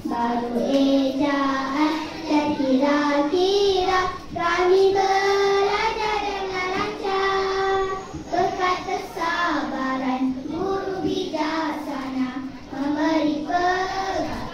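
A group of young children singing a song together in unison, with some long held notes.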